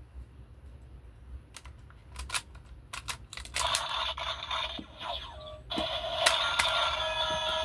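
Plastic clicks from a Super Sentai gesture-gun toy being handled, then, about three and a half seconds in, its electronic sound effects playing through its small speaker, with steady tones in the second half.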